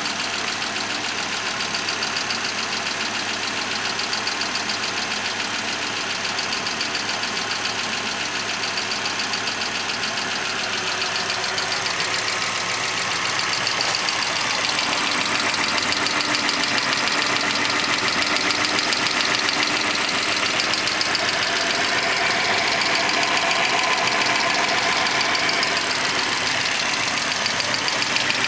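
1998 Volvo V70 engine idling warm with a rapid, steady lifter tick, a little louder about halfway through. The owner notes that it ticks only when warm even though oil pressure is good.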